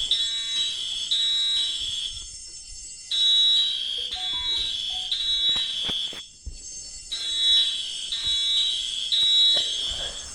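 Electronic fire-alarm sound beeping, alternating between a higher and a lower tone in runs of about three seconds with a pause of about a second between runs.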